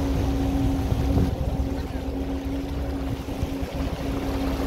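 Tour boat's engine running at a steady cruising speed, a constant drone over a low rumble, with water rushing past the hull.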